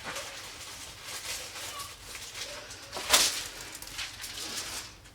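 Plastic-coated diamond painting canvas rustling and crinkling as it is rolled backwards to flatten it, with one louder crackle about three seconds in.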